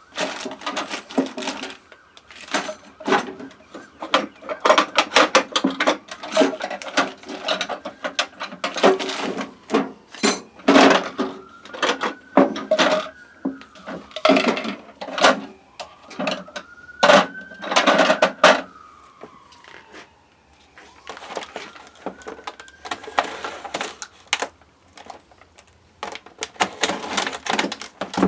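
Steel spade bits and their hard plastic carrying case being handled: many irregular clicks, clacks and rattles of metal against plastic, with a few squeaks that rise and fall in pitch in the middle stretch.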